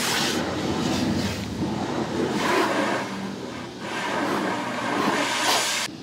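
Water from a car-wash spray wand hitting the windshield and body of the car, heard from inside the cabin as a loud hissing rush that swells and dips as the spray sweeps across. It cuts off abruptly near the end.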